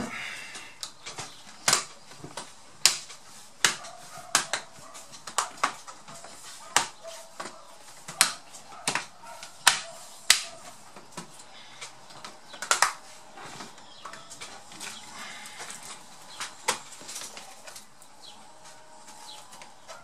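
Irregular sharp clicks and taps of hands pressing on a laptop's plastic keyboard deck and keys, about one a second, thinning out and stopping a few seconds before the end.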